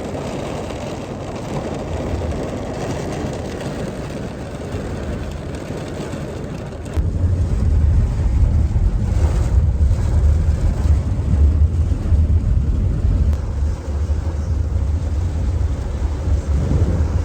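Car cabin noise: a steady rushing sound, then about seven seconds in a much louder low rumble sets in as the car gets moving.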